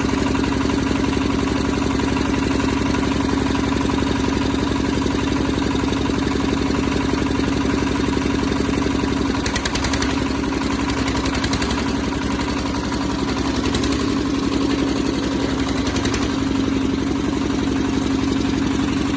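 Single-cylinder diesel engine of a concrete pump running steadily with the throttle slightly raised.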